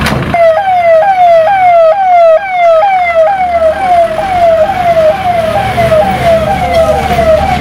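Ambulance siren sounding a fast electronic yelp: a loud tone that jumps up and slides down again about twice a second, starting a moment in.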